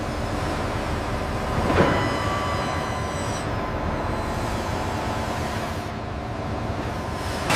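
A steady low rumble, with one sharp hit about two seconds in that leaves a ringing of several steady tones, fading within a couple of seconds.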